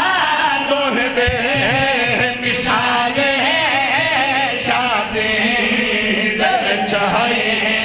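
Several men chanting a devotional verse together into microphones, amplified through a sound system: a lead voice with backing singers, the melody wavering and held on long notes.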